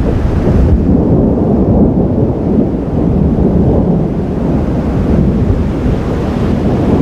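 Thunder rumbling: a long, low, steady roll with no sharp crack.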